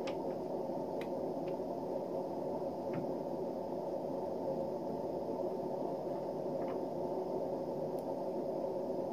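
A steady machine hum with a few faint clicks and taps, the sound of the dial indicator and its magnetic base being handled.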